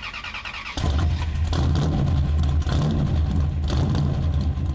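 Car engine catching after a brief crank about a second in, then running with a loud, deep rumble whose level rises and falls unevenly.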